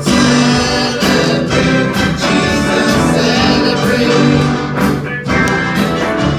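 Praise and worship music: a band with singing voices, a gospel-style worship song playing steadily.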